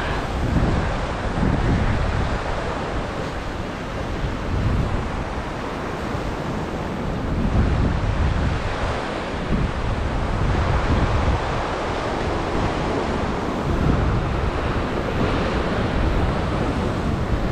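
Ocean surf surging and washing over a rock ledge, with wind buffeting the microphone.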